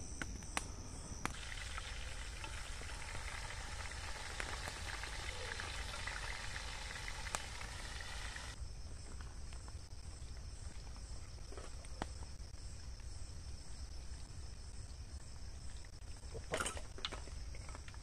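Night-time crickets chirring steadily in a high, even band. For the first several seconds a crackling hiss sits over them and cuts off suddenly about eight seconds in, with a few faint clicks and a short rustle near the end.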